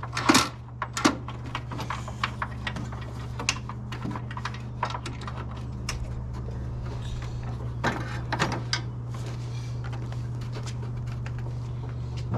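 Irregular light clicks and small metallic rattles of table saw parts being handled and fitted, with a louder clatter just after the start, over a steady low hum.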